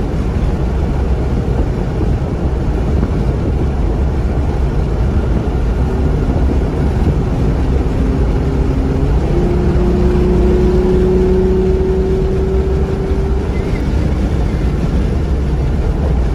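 Car driving at speed on a racetrack, heard from inside the car: a loud, steady low rumble of engine, tyres and wind, with an engine hum that comes up near the middle and rises slightly in pitch.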